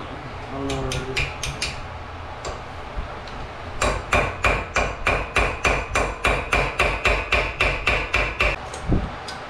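Hammer blows on steel at a car's brake caliper, working on a stripped bleeder valve. A few quick taps come about a second in, then a steady run of metallic, ringing strikes at about four a second, stopping shortly before the end.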